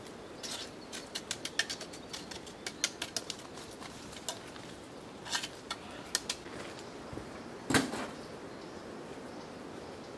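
Light, irregular clicks and taps of hand work at a volcanic stone wall, with one louder knock about three-quarters of the way through.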